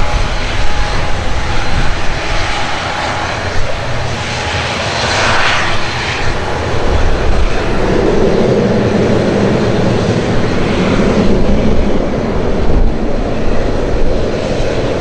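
ATR 72-600's twin turboprop engines running loud as the airliner rolls out down the runway after touchdown. It is a steady, broad rumble that thickens in its lower tones about halfway through.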